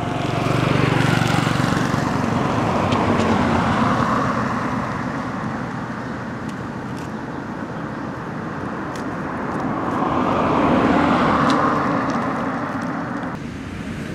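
Motor vehicles passing on a nearby road: a swell of engine and tyre noise that builds and fades over the first few seconds, then a second pass that rises and fades later on. The background noise drops suddenly near the end.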